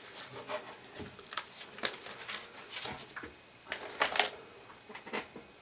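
Handling noise from an analog pyrometer being taken apart: scattered light clicks and taps of small parts being moved and set down, with soft rustling between. The loudest cluster of clicks comes about four seconds in.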